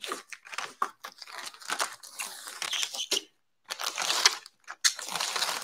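Protective plastic film being peeled off an acrylic 3D-printer enclosure door panel, crackling and crinkling in irregular bursts, with a short pause a little past the middle.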